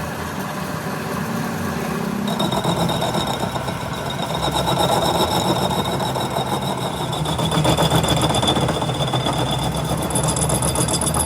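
Machinery running steadily with a fast mechanical rhythm and a high whine that comes in about two seconds in.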